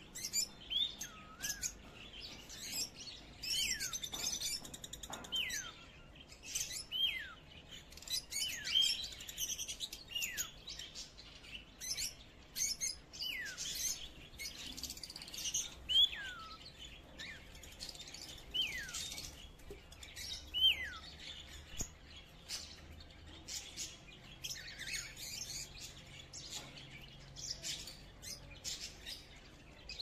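Small birds chirping busily, with a clear falling whistle repeated every two seconds or so; the whistles stop about two-thirds of the way through, and the chirping goes on.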